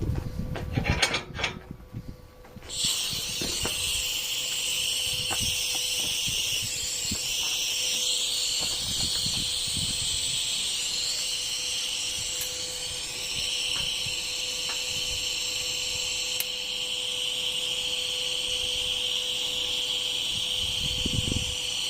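Stick welding arc crackling and hissing steadily. It strikes up suddenly about three seconds in, after a few knocks.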